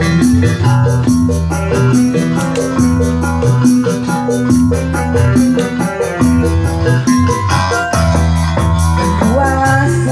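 Dangdut koplo band playing live at a sound check: a keyboard melody over bass and drums, with a fast, even ticking of high percussion.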